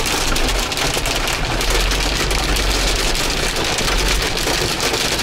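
Hail and heavy rain hitting a truck, a dense rattle of small impacts, over the low steady running of the truck's engine.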